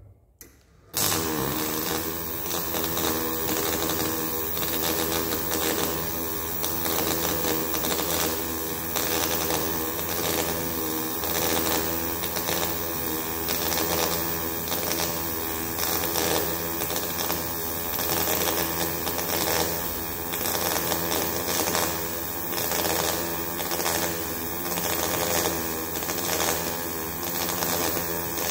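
MAG welding arc laying a vertical-up weld: it strikes about a second in and then runs steadily as a dense buzz, pulsing about once a second.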